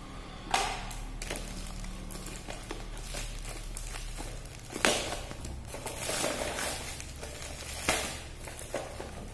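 Plastic parcel wrapping crinkling as it is cut open with scissors and torn by hand, with three louder sharp rips or snips along the way.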